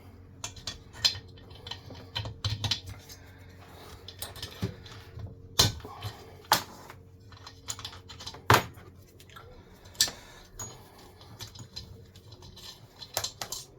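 Irregular metal clicks, taps and knocks of a socket tool working a glow plug out of a Chinese diesel heater, with a few sharper knocks in the middle. A faint steady hum sits underneath.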